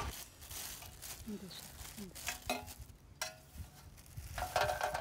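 Faint crinkling of a plastic food bag and light clicks as fried snacks are handled and served, with a few brief murmured voices.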